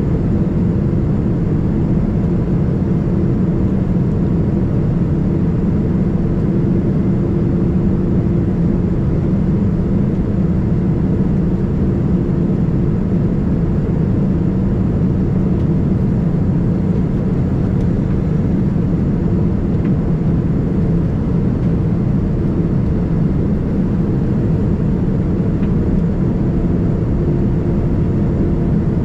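Steady, unchanging low drone inside the cabin of a Boeing 787-9 airliner: jet engine and air noise with a faint steady hum.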